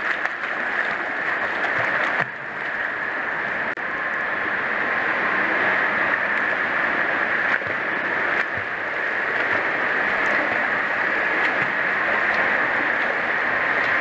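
Continuous churning and splashing of pool water as a child in armbands kicks and paddles. The sound dips briefly about two seconds in and again near four seconds, then carries on steadily.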